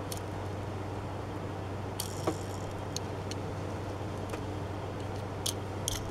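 Handling noise of a Hot Wheels die-cast toy car turned in the fingers: a few light clicks and ticks, a small cluster about two seconds in and more near the end, over a steady low hum.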